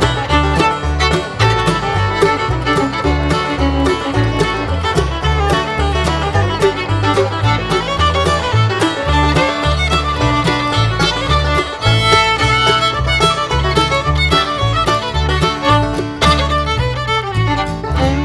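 Bluegrass-style music with fiddle, banjo and guitar over a steady bass beat, ending on a held chord.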